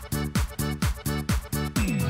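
Background music with a steady kick-drum beat, a little over two beats a second.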